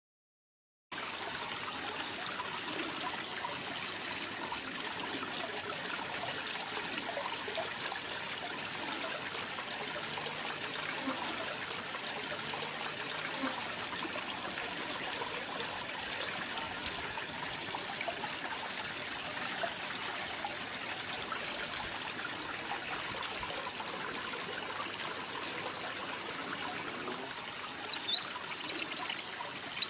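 A steady, even hiss of noise. About two seconds before the end, a songbird starts singing loud, quick repeated trills over it.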